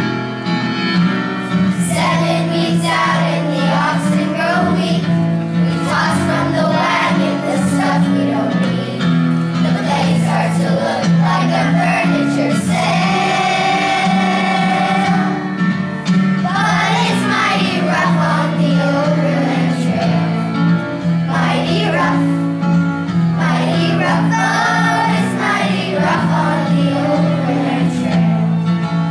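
A group of children singing a song together with instrumental accompaniment.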